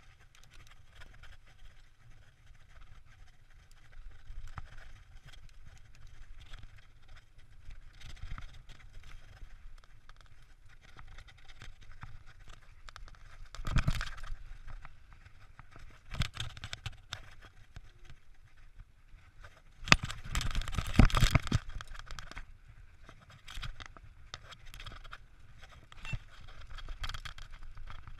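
Mountain bike ridden fast down a dirt forest trail: a steady rumble of tyres on packed dirt with the bike rattling and knocking over bumps. It gets rougher and louder around fourteen seconds in, and loudest for a couple of seconds about twenty seconds in.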